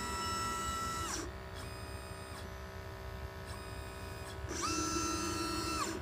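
Stepper motors of a pick-and-place machine's gantry whining through two jog moves. Each time the whine glides up in pitch, holds, then glides down as the head stops: once ending about a second in, and again for about a second and a half near the end. A steady machine hum runs underneath.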